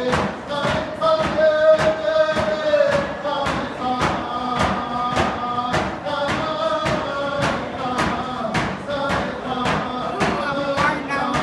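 Round dance song: a drum struck in a steady beat, about two beats a second, with voices singing the melody over it.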